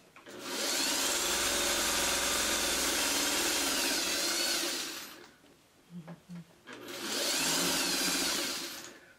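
Electric sewing machine stitching a seam through quilt blocks in two runs: about five seconds, then a short pause with a few light clicks, then about two more seconds. The motor's speed wavers slightly as it runs.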